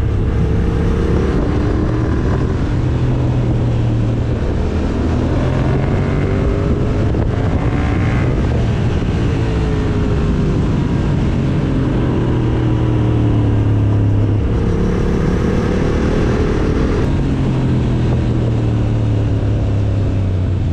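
Yamaha MT motorcycle engine running under way, its pitch rising and falling a few times as the rider opens and closes the throttle.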